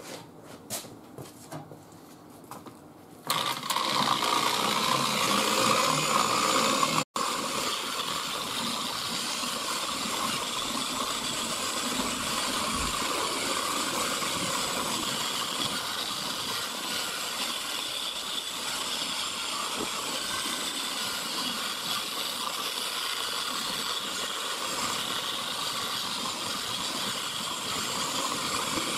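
A few faint clicks, then about three seconds in an electric random orbital car polisher (URCERI 1100 W) starts up. It runs steadily with its pad working polish over a car's painted door panel, cut off for an instant about seven seconds in.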